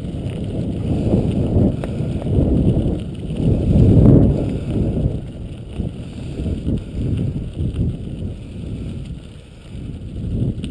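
A dog-pulled mushing rig rolling over a gravel trail, a continuous uneven rumble, with wind buffeting the action camera's microphone.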